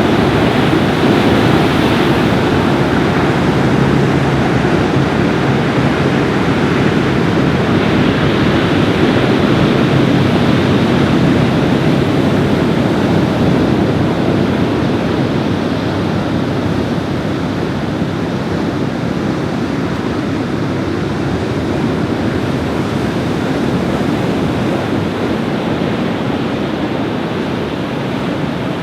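Strong wind buffeting the microphone over ocean surf breaking on a beach: a loud, steady rush that eases slightly toward the end.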